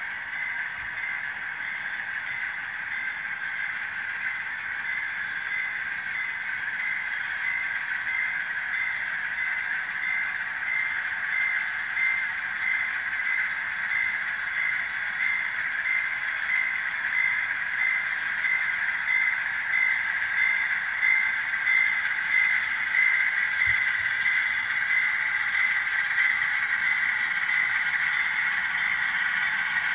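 Model train of diesel locomotives and tank cars running on the layout's track, a steady metallic running sound with an even tick about twice a second, growing louder as the train comes closer.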